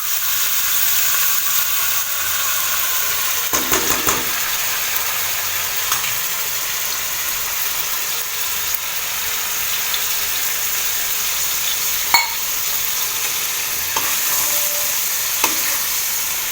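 Chicken korma in yogurt and spice paste sizzling steadily in a pan, with a few clicks and scrapes of a spoon stirring it, the sharpest about twelve seconds in.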